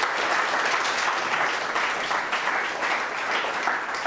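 Audience applauding, a dense steady clapping from a roomful of people.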